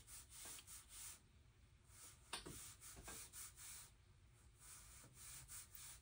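Near silence with faint soft rubbing strokes of a small watercolor brush on paper, and one slightly louder tap about two and a half seconds in.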